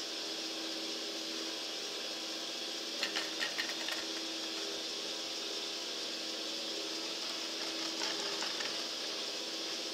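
T-bar ski lift running empty: a steady mechanical hum from the haul cable moving over the sheave wheels, with a short run of clicks and rattles about three seconds in and again near the end as a T-bar hanger passes.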